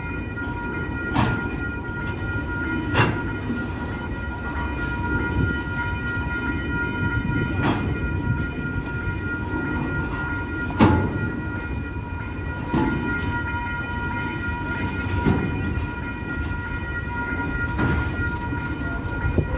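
Container freight train rolling past: a steady low rumble of wagons with a heavy clunk every two to three seconds, over a steady high ringing tone.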